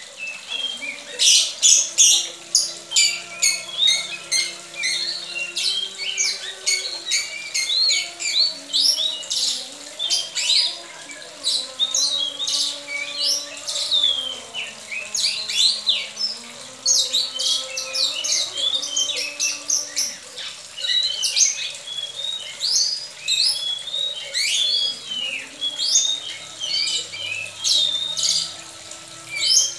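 Female oriental magpie-robin (kacer koci) singing and calling without a break: a fast run of short high chirps and quick whistled sweeps.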